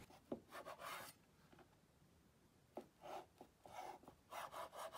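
Faint scraping and rubbing of a cleaver blade slicing down through a stack of tofu-skin sheets onto a wooden cutting board, in several short strokes with a couple of light taps.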